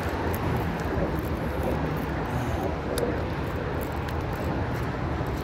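A spinning fishing reel being cranked to wind in line, heard only as a few faint ticks over a steady low outdoor rumble.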